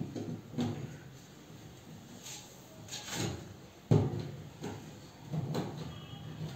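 Plastic knocks and short scrapes of PVC ceiling panels being pushed and slid into place overhead, with a sharp knock about four seconds in as the loudest.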